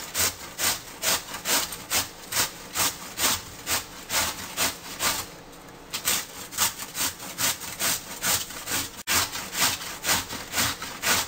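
Cabbage being grated by hand on a metal grater: a steady rhythm of rasping strokes, about two a second, with a short break about five seconds in.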